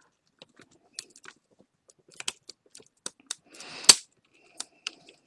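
Small plastic clicks and taps as the print-head carriage assembly of an Epson PictureMate printer is worked loose from its guide by hand. About four seconds in, a brief scrape ends in one sharp, loud snap.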